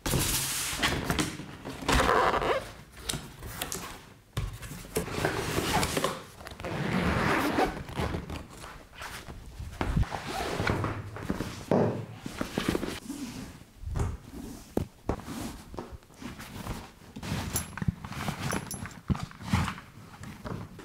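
Packaging being handled on a tabletop: repeated knocks and thumps, zipper and rustling of a nylon helmet bag, and the swish of a cloth helmet sack as a full-face motorcycle helmet is drawn out of it.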